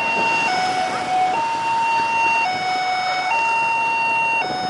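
Two-tone hi-lo siren, alternating between a higher and a lower note about once a second.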